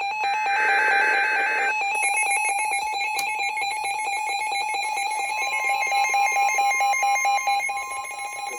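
Emergency Alert System warning signals: a burst of the screeching digital header data near the start, over a rapid electronic beeping that runs throughout. A steady alert tone joins about halfway through.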